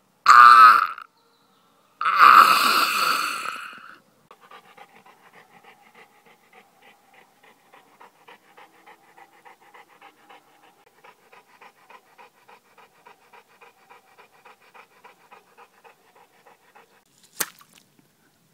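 Three loud, drawn-out cries in the first four seconds, then a dog panting quickly and faintly, about five breaths a second, for most of the rest. A single sharp click comes near the end.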